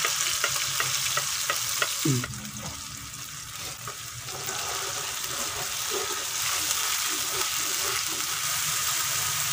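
Blended chili-spice paste frying in hot oil in a wok, sizzling steadily, while a metal spatula scrapes and stirs it around the pan. The sizzle drops a little a couple of seconds in, then picks up again.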